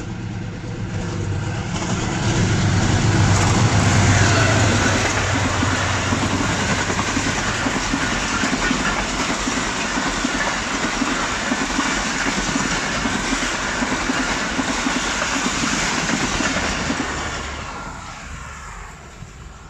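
Diesel-electric locomotive hauling a passenger express through at speed. The locomotive's engine drone swells and is loudest a few seconds in, then the coaches rush past with wheels clattering over the rail joints, fading away near the end.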